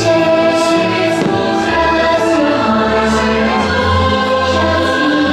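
Fireworks-show soundtrack music: a choir singing long held chords over the accompaniment.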